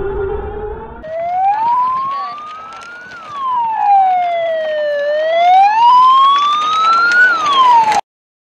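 Volkswagen I.D. R Pikes Peak's twin electric motors whining at speed: a high whine climbs as the car accelerates, drops as it slows, climbs again and drops once more, then cuts off suddenly near the end. In the first second a lower whine is heard with a low rumble.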